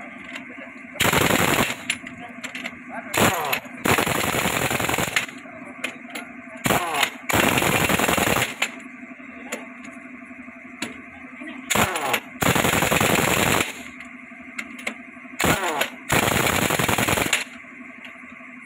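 Pneumatic impact wrench on truck wheel nuts, rattling in five runs a few seconds apart. Each run is a short burst followed by a longer one lasting about a second or more, with a steady hum underneath.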